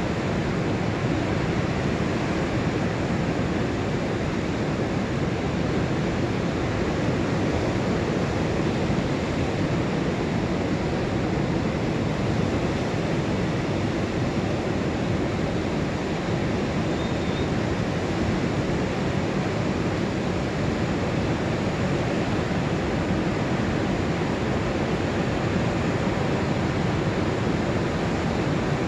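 Rough Pacific surf breaking on a sandy beach: a steady, even rush of waves with no single crash standing out.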